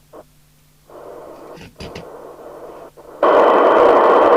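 Cybernet Beta 2000 FM CB radio receiving on an aerial: a few brief clicks and short bursts over a faint hum, then about three seconds in the squelch opens and the loudspeaker gives out a sudden, loud, steady rush of band-limited hiss from an incoming signal.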